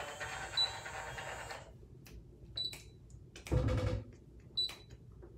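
Conair automatic hair curler's motor running, then stopping about a second and a half in, followed by short high beeps about every two seconds, the signal that the curl is done. A loud handling bump comes about three and a half seconds in.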